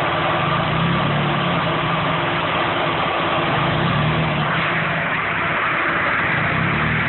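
Nissan SR20 red top engine idling roughly at low revs, its note swelling and sagging as it stumbles on the edge of stalling, with the mixture so rich that the owner says it is nearly choking itself out.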